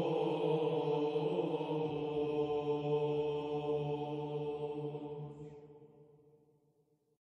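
Background chant music: slow held vocal tones over a sustained drone, fading out near the end.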